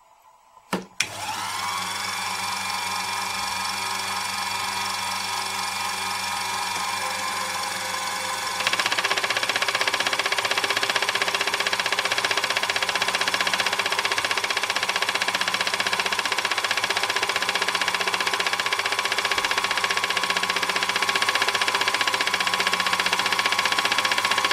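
The motor of an Emco Unimat 3 mini mill switches on with a click about a second in and spins up to a steady whine, with the fly cutter turning at about 560 RPM. About eight seconds in, the fly cutter starts facing the aluminium bar, adding a louder, rapid rhythmic cutting noise.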